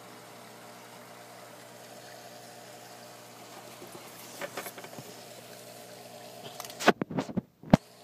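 Steady hum of aquarium equipment with a faint trickle of water. Near the end come several loud knocks and bumps as the handheld camera is moved against the tank.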